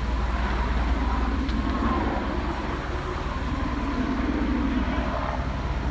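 Steady low engine rumble with a wash of street noise, nothing sudden.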